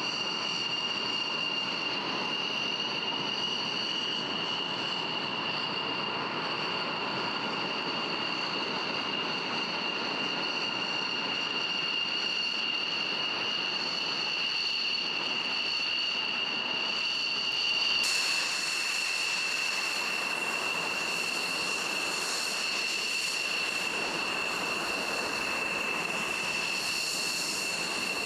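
F-16 Fighting Falcon's single jet engine running at taxi power: a steady high-pitched whine of two tones over a broad rushing hiss. About two-thirds of the way through, the sound shifts abruptly: the hiss turns brighter and the whine dips a little in pitch.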